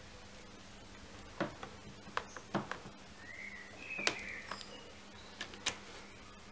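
Scattered light taps and scuffs from a kitten playing with a feather wand toy on a carpeted cat tree, over a low steady hum. A short, faint squeak is heard a little past the middle.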